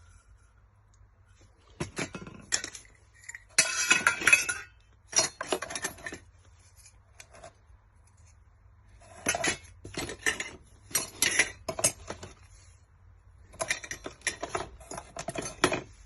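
Small hard objects clinking and clattering as they are handled, in several separate bursts with short quiet gaps between them.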